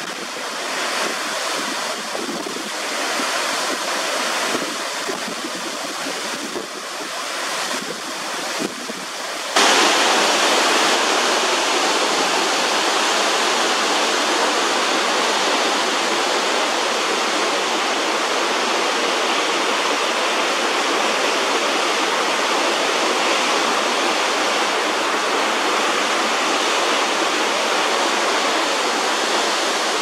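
Heavy rainwater runoff after a typhoon cascading down a roadside rock face like a waterfall: a steady rush of falling water. It gets louder and fuller about ten seconds in.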